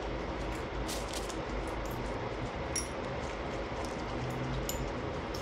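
Steady low hum and hiss of room noise, with a few light clinks of metal chopsticks against the dishes, about halfway through and again near the end.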